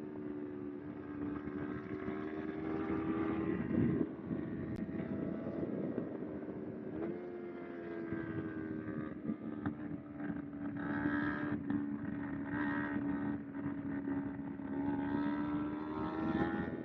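Kawasaki Ninja 250R's parallel-twin engine running under way. Its note holds mostly steady, breaks up briefly about four seconds in, jumps up in pitch at about seven seconds and climbs again near the end, with wind noise underneath.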